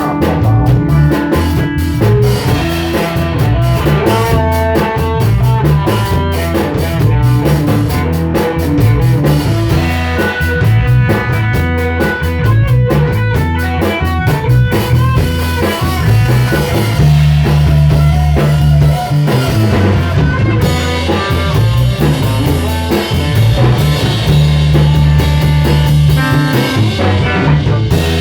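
Band playing an instrumental passage of a song, with guitar and drum kit over deep, sustained low notes.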